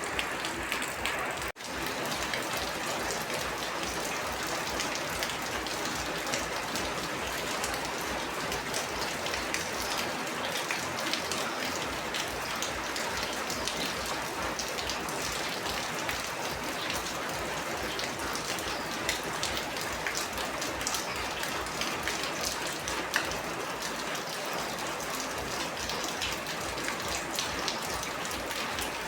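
Steady rain falling on a surface, a dense patter of drops. The sound cuts out for a split second about a second and a half in.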